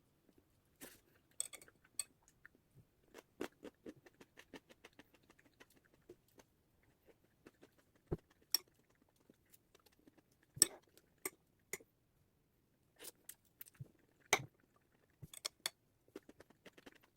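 Quiet, irregular small clicks and clinks of utensils and dishes handled at a table or counter, a few louder taps among them.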